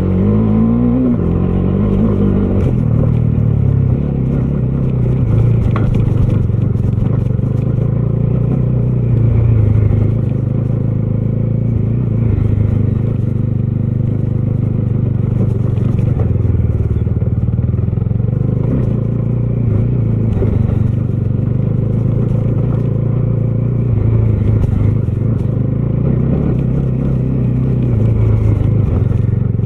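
Bajaj Dominar 250's single-cylinder engine riding on the road, revving up through a gear in the first couple of seconds, then running at a fairly steady engine speed with small rises and falls.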